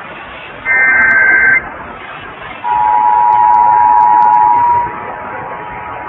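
Emergency Alert System test received on AM radio. A short screeching SAME header data burst comes about a second in. About a second after it, the two-tone EAS attention signal starts, loud for about two seconds, then drops in level and keeps sounding. Radio hiss runs underneath throughout.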